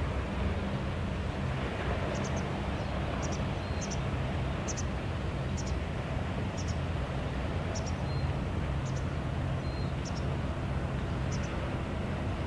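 Yamaha YFR fishing boat's engine running steadily at cruising speed, a low, even drone heard from a distance. Faint high double chirps repeat about once a second over it.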